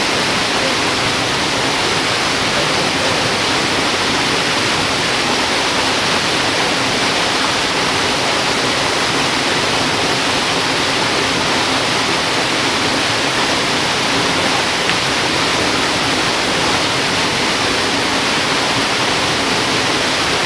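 Steady rush of flowing river water, a loud, even noise that does not change.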